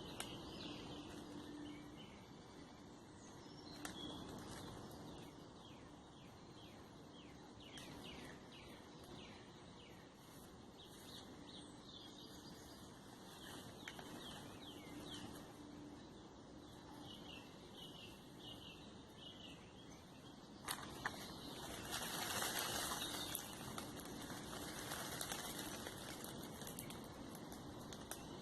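Songbirds calling faintly: many short, quick descending chirps through the first half. About 21 seconds in a louder rushing noise swells for a few seconds, then eases off.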